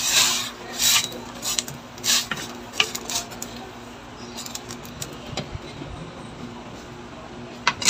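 A wooden spatula stirring vegetables in a stainless steel pot of simmering soup, with scattered knocks and scrapes against the pot in the first few seconds. Near the end, a sharp clink as the glass lid goes back on the pot.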